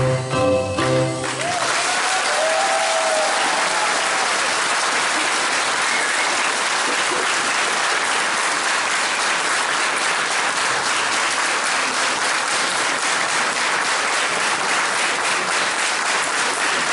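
Music ends about a second in, then a theatre audience applauds steadily.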